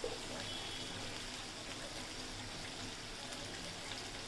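Curry spices frying in hot oil in a cooking pot: a steady, even sizzle with a few faint ticks.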